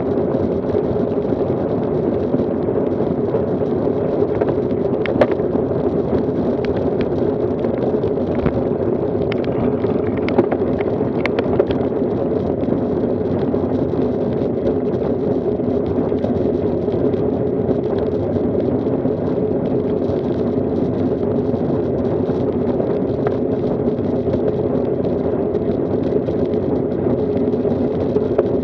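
Steady wind buffeting and road rumble picked up by a camera riding on a road bicycle in a group ride, with a few sharp clicks between about five and twelve seconds in.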